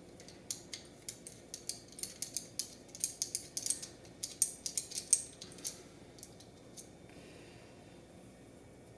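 Quick, light clicks and taps of small tools and gimbal parts being handled during disassembly. They come densely for about six to seven seconds, then stop.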